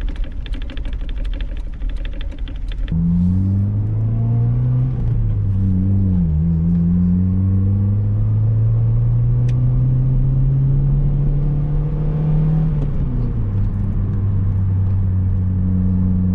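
A car engine with freshly replaced spark plugs and plug wires being started: it cranks with a fast, even clatter for about three seconds, then catches and runs. It revs up and down briefly, holds a steady fast idle, then settles to a lower idle near the end.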